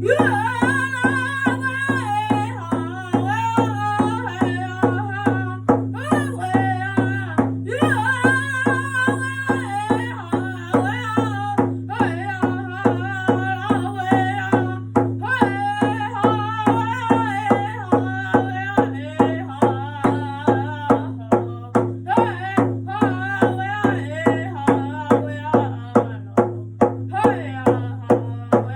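First Nations drum song: a singer's voice sung over a steady drumbeat of about two beats a second.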